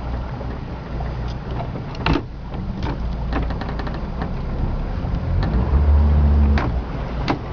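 Boat motor running steadily with a low hum that swells briefly about six seconds in, under water and wind noise with a few sharp knocks.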